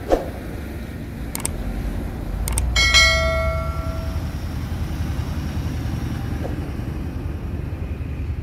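A dump truck's diesel engine runs with a steady low rumble throughout. Over it comes a subscribe-button sound effect: a short swoosh at the start, two mouse clicks, then about three seconds in a bell ding that rings out for about a second.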